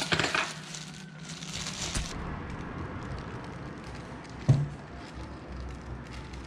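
Thin plastic bags crinkling and rustling as takeaway food is unpacked by hand, busiest in the first two seconds, with a single thump about four and a half seconds in.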